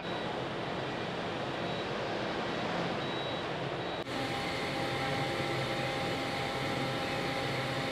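Steady mechanical drone of a car ferry's machinery as it gets under way, with a few faint steady whining tones over it. The pitch and colour of the drone change abruptly about four seconds in.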